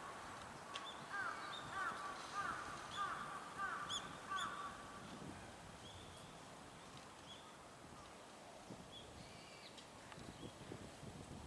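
A bird calling in a quick series of about six short calls, one roughly every half second, from about a second in until about four and a half seconds in. Fainter high chirps of small birds come and go throughout.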